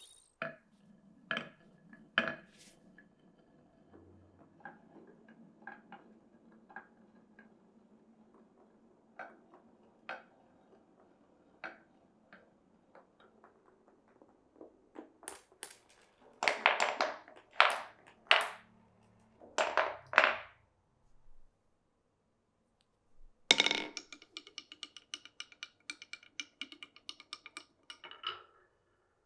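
Glass marbles rolling through a wooden marble run: a low steady rolling rumble with scattered clicks, then a cluster of louder clacks about two-thirds of the way in. Near the end, one sharp knock is followed by a rapid run of ringing ticks, about eight a second, lasting about four seconds.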